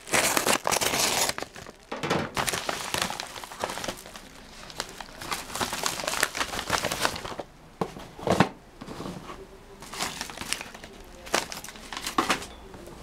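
A paper mailing envelope being pierced with a pointed tool and torn open by hand: repeated crinkling and tearing of paper in uneven bursts, with a single sharp knock about eight seconds in.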